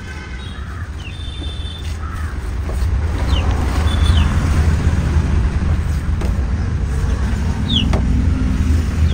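A steady low rumble that grows louder about three seconds in, with a few short, falling high chirps now and then.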